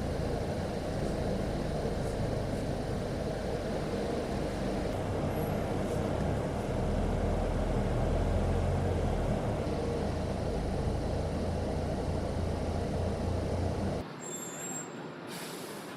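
A heavy vehicle running: a loud, steady, low-pitched engine and road noise. It cuts off abruptly about 14 seconds in, giving way to quieter background noise with one brief sharp sound soon after.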